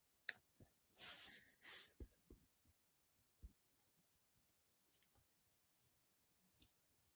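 Near silence: room tone with a few faint short clicks and soft rustles.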